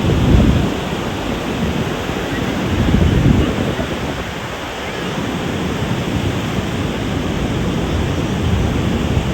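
Ocean surf washing onto a sandy beach: a steady rush of waves that swells about half a second in and again around three seconds in.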